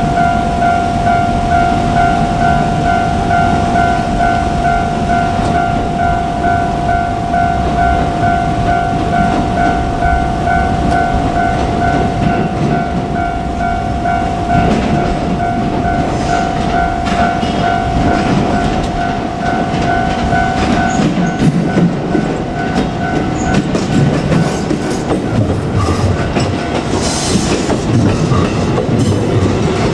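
Japanese level crossing warning bell ringing in a steady pulsing two-tone pattern while a JR Kyushu 787 series limited express runs through, its wheels clacking over the rail joints. The bell stops about two-thirds of the way through as the train keeps passing.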